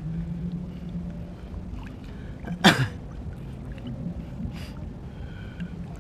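Shallow seawater sloshing as someone wades through it, over a steady low hum. A sudden loud burst comes about two and a half seconds in.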